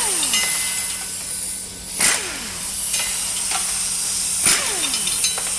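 A power tool fires in three short bursts about two seconds apart, each ending in a falling whine as it spins down, over a steady hiss. This is the tool loosening the flywheel bolts during an engine teardown.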